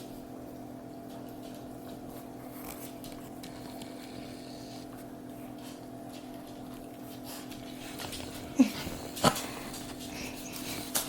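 Steady low hum in a quiet room, then near the end a brief mini Australian shepherd whine falling in pitch, followed by a single sharp click.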